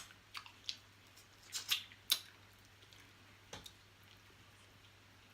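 Close-up eating sounds of a boiled blue crab: a scattering of short, sharp cracks and wet clicks of shell being broken and picked at, in a few clusters over the first four seconds.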